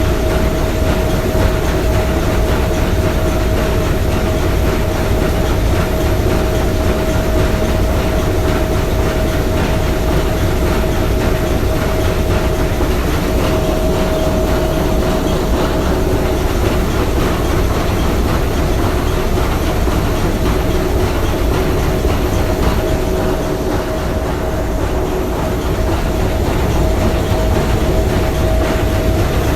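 Three-cylinder triple-expansion marine steam engine running steadily: a dense, even mechanical clatter with a steady tone held underneath.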